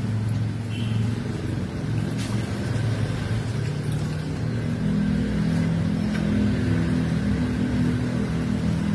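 Engine of a septic siphoning truck running steadily while it drives the vacuum pump. About five seconds in it speeds up to a slightly higher, louder pitch.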